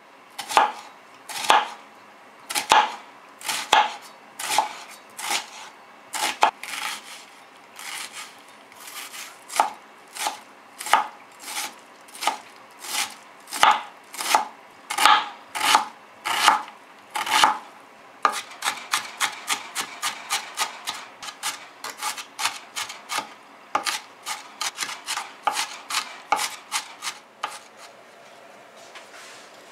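Kitchen knife chopping an onion into fine dice on a plastic cutting board, with sharp regular strokes about one to two a second. About halfway through the strokes turn quicker and lighter, about three a second.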